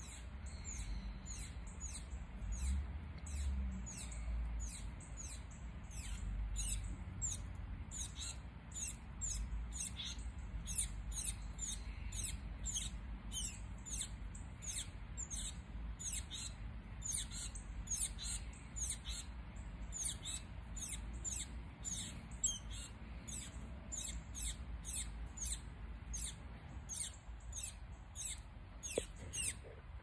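Northern cardinal giving sharp, high chip notes, repeated steadily about three times a second, over a low rumble.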